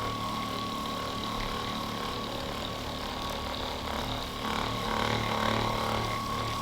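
Ekrin B37 percussion massager running on the shoulder muscles: a steady motor whine over a low hum, briefly a little louder about five seconds in.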